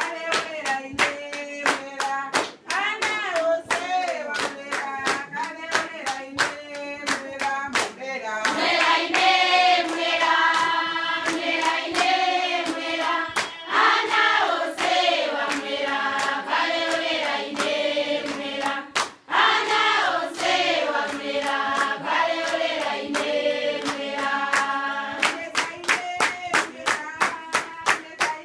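A group of voices singing together to steady hand clapping, about three claps a second. The singing grows fuller and louder about eight seconds in.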